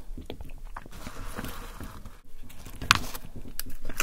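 Close-miked soft taps, rustles and small knocks of hands handling grilled tortilla wraps and fries on a wooden board, with one sharper, louder crackle about three seconds in.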